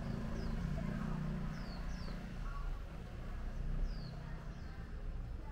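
Street ambience: a vehicle engine runs with a low hum, strongest in the first three seconds and easing after. A small bird gives a few short, high chirps that fall in pitch, two of them close together about a second and a half in.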